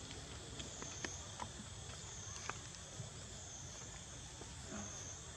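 Steady high-pitched insect chorus that gently swells and fades, with a few scattered light clicks and taps.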